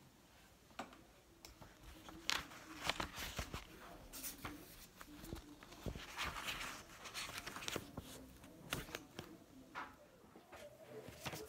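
Pages of a thick paperback book being flipped and riffled: a run of papery flicks and rustles.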